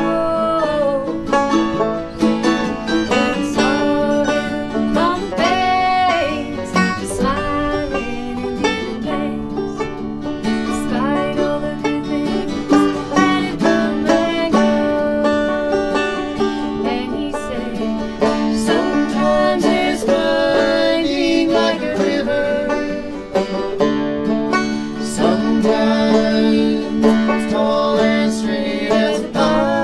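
Acoustic bluegrass trio playing live: banjo, acoustic guitar and mandolin together, with a woman singing lead.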